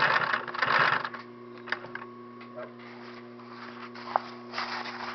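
Rustling and scraping of fabric and webbing being handled while stitching by hand, loudest in the first second and again near the end, with a few light clicks and a brief squeak about four seconds in. A steady low hum runs underneath.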